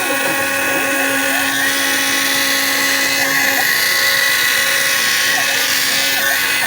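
CNC router spindle running and cutting into plastic: a steady high-pitched whine over a continuous cutting hiss.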